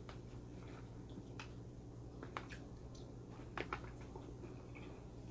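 Faint chewing of a thick pickle slice: a handful of short, soft crunches and mouth clicks over a low, steady hum.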